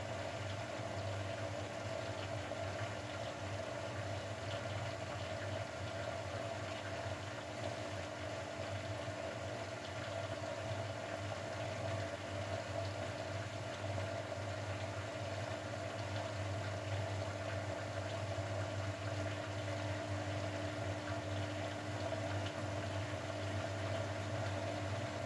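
Drain pump of a Grundig Mini 14 washing machine running steadily with an even hum, pumping out the wash water with a faint liquid gurgle.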